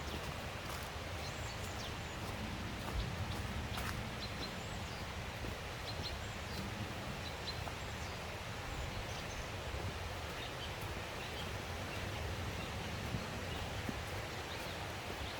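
Steady rushing of a forest stream, with a few short bird chirps above it and an occasional light knock.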